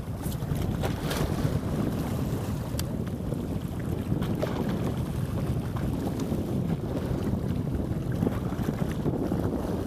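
Wind buffeting the microphone, a steady low rumbling rush, over the wash of small sea waves, with a few faint clicks in the first three seconds.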